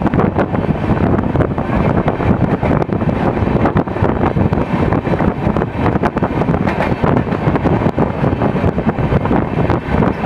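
Passenger train running at speed, heard from onboard, with strong wind buffeting the microphone.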